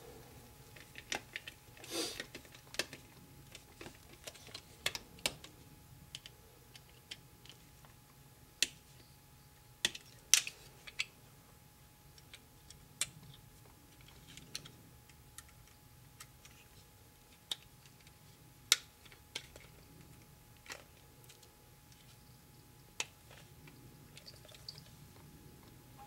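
Irregular sharp clicks and taps of a desktop hard drive being handled in its plastic mounting bracket and screwed in with a screwdriver, a few of them louder than the rest.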